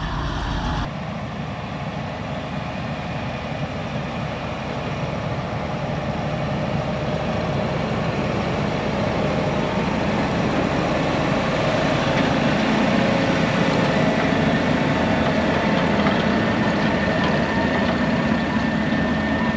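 Heavy diesel engine running steadily, likely a farm tractor's, getting gradually louder over the first dozen seconds, with a faint high whine in the second half.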